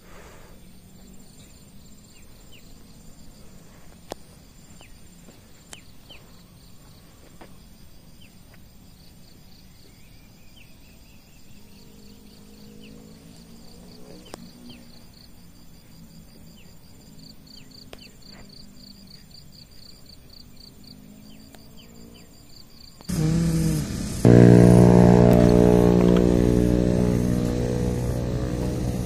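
Faint insects chirping in a steady pulsing trill among vegetation. About 23 seconds in, a motorcycle engine suddenly comes in loud and keeps running, slowly fading.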